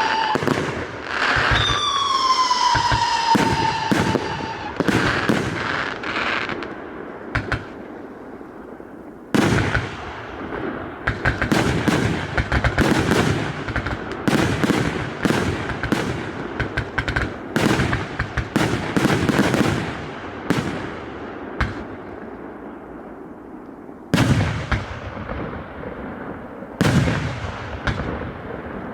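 A 188-shot fireworks cake firing. Falling whistles come in the first few seconds, then a quieter stretch, then a dense run of rapid shots and bursts. Single loud bangs come near the end.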